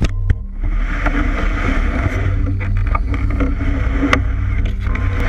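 Tall grass and reeds brushing and scraping along a metal canoe's hull as it is pushed through them, over a steady low rumble carried through the hull, with a couple of sharp knocks against the boat.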